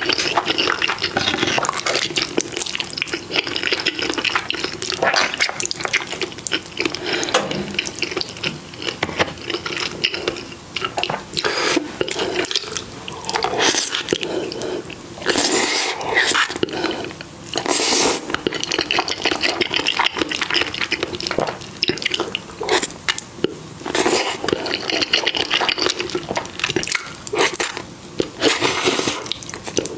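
Wet eating sounds: chewing and slurping food, with many small irregular clicks and smacks.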